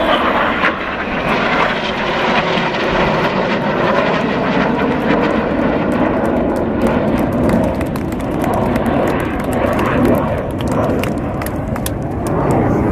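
Four BAE Hawk T1 jets, each powered by a Rolls-Royce Adour turbofan, flying past in formation: loud, steady jet noise with a rapid crackle through the second half.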